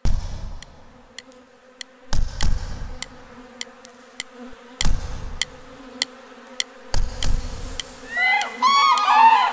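Hand-played rhythm: four deep drum beats about two and a half seconds apart, with light, evenly spaced ticks between them, over a steady buzzing hum. Near the end a bird gives a quick run of arching whistled calls.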